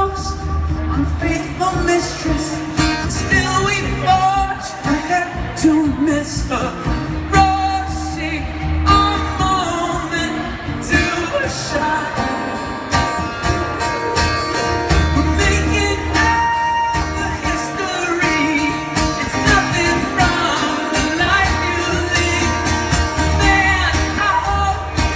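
A live rock band playing a song: a voice singing the melody over guitars, with stretches of heavy bass.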